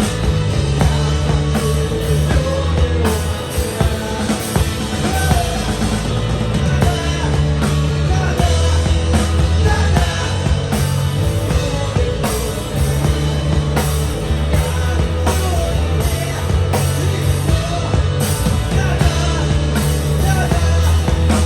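Live rock band playing a song: drum kit and bass guitar with guitar, and a voice singing over them.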